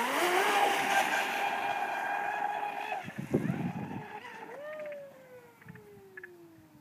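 Genesis RC catamaran's electric motor whining at speed. Its pitch steps up right at the start and holds steady for about three seconds before dropping away with a short rush of noise. Then a whine falls steadily in pitch and fades as the boat runs off into the distance.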